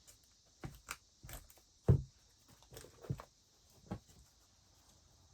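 A series of light clicks and knocks from craft supplies being handled on a tabletop, with one louder knock about two seconds in.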